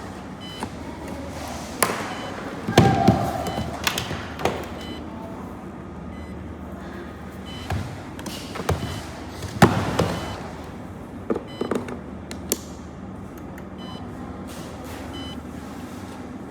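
Handling noise from a hand-held cable tracer receiver: scattered clicks and knocks of its plastic case being handled, over a steady background hum.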